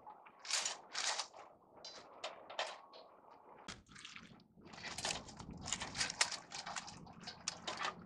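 Dry leaves, pine needles and twigs rustling and crunching as they are pushed by hand into a folding stainless-steel wood stove as tinder, in a quick run of short crackles. A low steady hum comes in a little before halfway.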